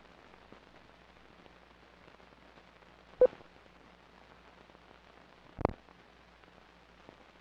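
Faint steady hiss with two sharp pops, the first and loudest about three seconds in, the second between five and six seconds in.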